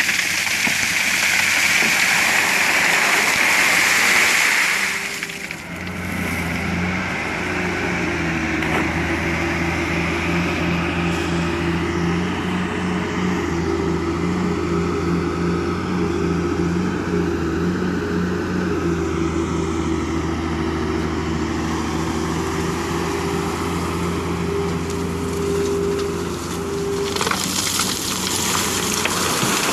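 A Cat 325L excavator's bucket tipping river gravel and stones into a dump truck's steel bed: a loud rushing clatter for about five seconds. Then a diesel engine runs steadily for some twenty seconds, and the rushing of a second load pouring in returns near the end.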